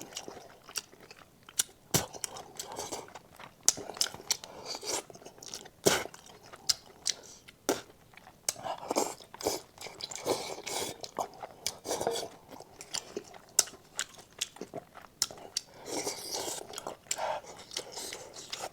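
Close-miked eating: a person chewing and biting food with wet mouth sounds and sharp crunches and clicks, the loudest about 2 and 6 seconds in.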